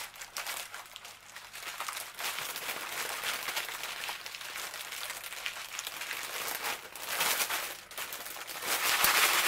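Clear plastic bag and the small bags of diamond painting drills inside it crinkling and rustling as a hand spreads them about. The crinkling is loudest near the end.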